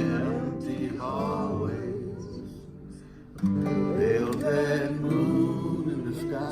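Acoustic guitars strumming chords together while voices sing along, with a fresh strummed chord about halfway through.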